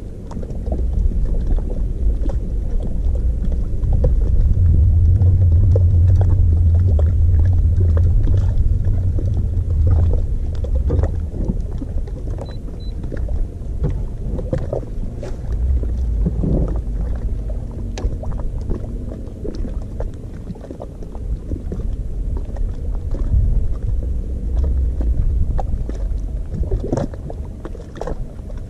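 Fishing kayak on open water: a low rumble, loudest in the first third, with scattered small knocks and slaps against the hull.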